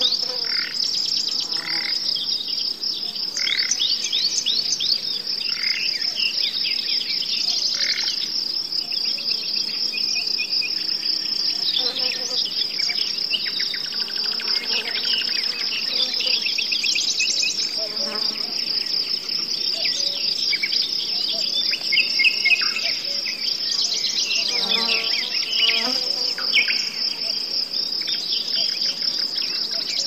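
Songbirds singing in short, varied trilled and whistled phrases over a continuous high-pitched insect trill.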